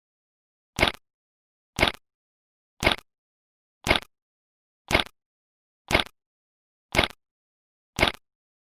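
Bad-signal sound effect: short bursts of static-like noise, one a second, eight in all, with dead silence between them.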